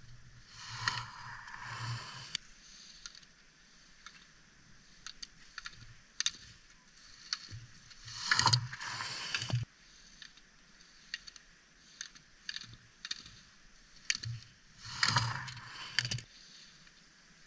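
Slalom skis carving and scraping across hard-packed snow as racers turn past close by, three times: about a second in, about eight seconds in and about fifteen seconds in, each a hiss of a second or two. The last pass comes as a racer knocks the hinged blue gate pole aside. Light scattered clicks fall between the passes.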